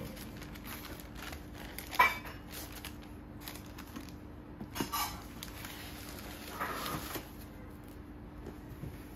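Crinkling and rustling of tissue paper and plastic wrapping as a new sneaker is handled and unwrapped, in a few short spells, with a sharp tap about two seconds in. A faint steady hum runs underneath.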